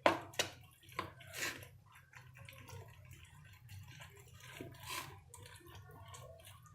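Spoon mixing beaten egg into chopped vegetables in a bowl: wet squelching with short clicks of the spoon against the bowl, strongest in the first second and a half and again about five seconds in.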